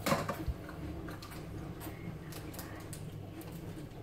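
Scattered light clicks and rustles of a plastic candy-kit tray and wrappers being handled on a countertop, with one soft thump about half a second in.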